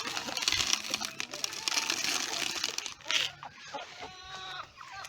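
Rustling, crinkling crackle of chicken feed being handled and poured out for the chickens, dense for the first three seconds. It is followed by a few short animal calls near the end.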